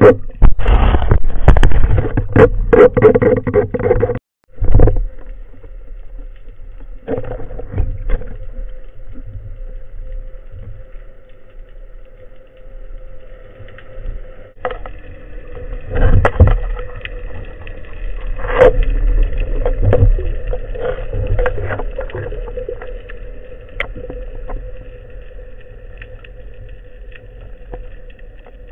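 Muffled underwater sound picked up by a speargun-mounted camera in its housing: water moving past and scattered knocks and clicks against the gun and housing, over a steady hum. The first few seconds are louder and busier, and the sound drops out briefly about four seconds in.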